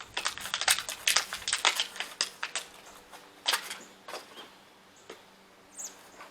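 Small hard parts being handled: a quick run of clicks and rattles for about three seconds, then a few separate clicks, typical of bolts, washers and nuts or packaging being sorted by hand.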